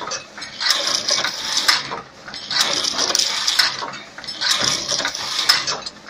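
Crimped wire mesh weaving machine running, a metallic clatter of clicks and rattles that repeats in even cycles about every two seconds as it weaves steel wire into mesh.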